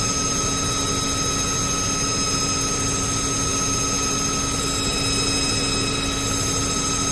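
Plate-making machine running steadily: a constant hum and rush with several steady whining tones, with no knocks or changes.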